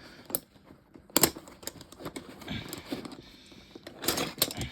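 Hand tools clicking and clinking irregularly as they are handled, with a few sharper knocks about a second in and near the end.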